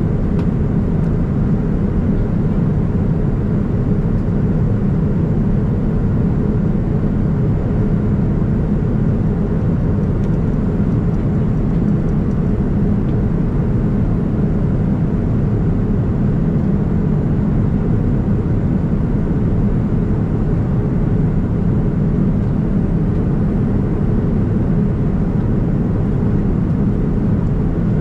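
Steady cabin noise of a Boeing 787-9 airliner: a constant low rumble of the engines and rushing air heard from a window seat.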